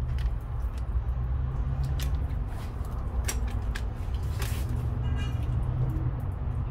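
Scattered light clicks and clinks of metal hand tools and steering parts being handled, over a steady low rumble.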